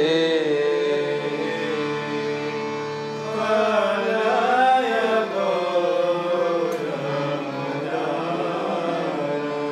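Harmonium playing the kirtan melody between sung lines, its reeds holding steady sustained notes. A wavering vocal line briefly joins in the middle.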